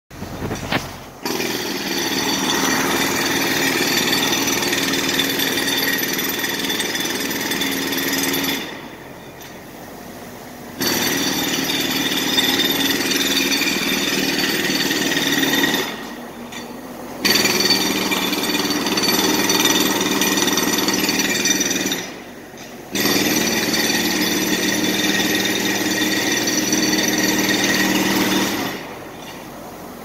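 Jackhammer hammering in four long runs of several seconds each, stopping briefly between them. It starts about a second in and stops for good shortly before the end.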